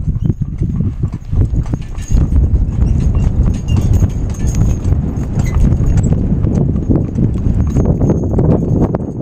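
Hooves of a pair of ponies clip-clopping at a trot on a paved road as they pull a wagon, over a low rumble. The sound grows louder about two seconds in.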